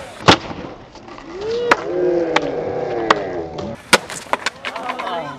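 Skateboard deck and wheels striking concrete: a sharp crack about a third of a second in, more knocks at intervals, another loud smack near four seconds in and a rattle of smaller clacks after it. People's voices call out in between.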